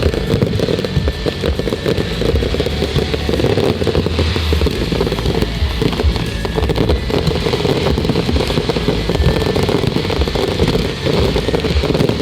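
Fireworks going off in a dense run of crackles and bangs, over music playing from loudspeakers.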